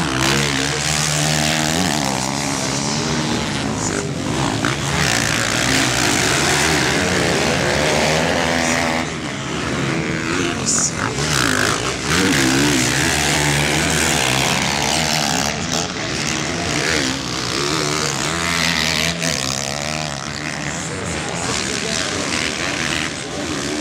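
450cc motocross bikes racing past, their engines revving up and down through throttle and gear changes, pitch rising and falling continuously.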